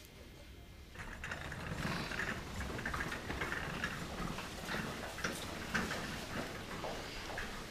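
Busy background ambience of a hospital waiting area, with many small irregular clicks and knocks over a steady bed of noise, starting about a second in after a quiet moment of room tone.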